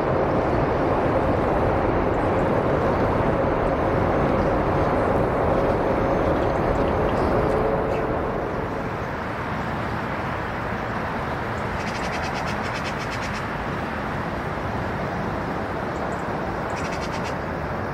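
Jet airliner engine noise, loud and steady, with a faint tone that slides down in pitch about seven seconds in. The noise then settles to a slightly lower, steady level.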